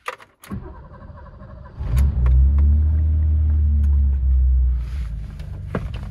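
A BMW 325e's 2.7-litre straight-six is cranked and starts. It catches about two seconds in, runs at a raised speed for about three seconds, then settles to a lower, steady running note.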